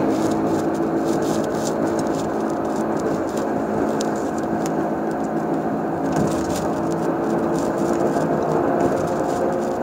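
Chevrolet Impala driving, with a steady whining drone over road noise; its pitch sinks a little and climbs again near the end, with scattered light clicks. The owner places the noise between the wheel and transmission rather than in the engine, a CV joint or wheel bearing, though he is not sure which.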